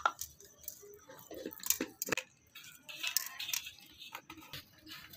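Crisp fried sev (gram-flour noodles) sprinkled by hand onto a plate of papdi chaat: scattered light ticks and rustles, with a few sharper clicks.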